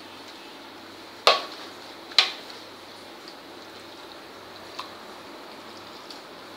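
Water sloshing softly as shredded raw potato is swished and rinsed by hand in a shallow dish. Two sharp knocks, about a second apart, come a little after a second in.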